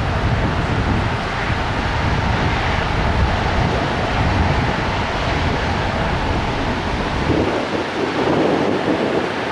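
Jet airliner's engines rumbling as it passes, with wind on the microphone. About seven seconds in, the deep rumble falls away and the sound shifts higher.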